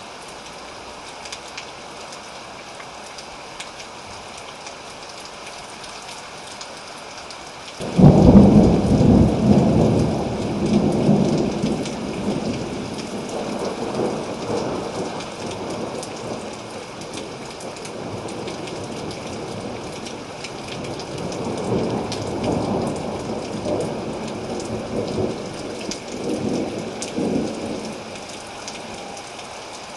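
Steady rain falling, with a thunderclap breaking in suddenly about a quarter of the way through and rolling on as a long rumble, which swells again twice before dying away near the end.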